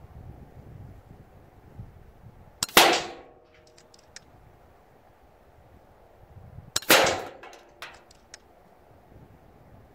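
Two shots from an FX Crown Mk2 Compact .177 pre-charged pneumatic air rifle, about four seconds apart. Each is a sharp crack with a short ringing tail, followed by a few small clicks. Wind rumbles on the microphone throughout.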